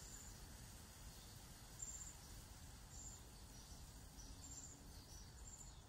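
Near silence: a quiet garden background with a faint low hum and short, high chirps every second or so, from a small bird or insect.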